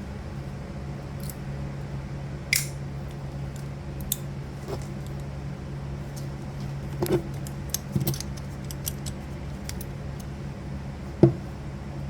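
Scattered small metallic clicks and clinks of a nut driver and the metal parts of a pinball score reel unit being handled, over a steady low hum. The sharpest knock comes near the end.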